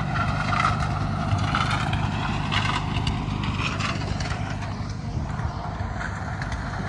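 Engine of road-construction machinery running steadily, with scattered scraping and knocks during the first few seconds.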